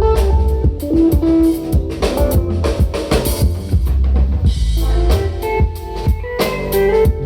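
Live band music over a PA during a sound check: a drum kit keeps a steady beat with bass drum and snare under a sustained bass line and held instrument chords.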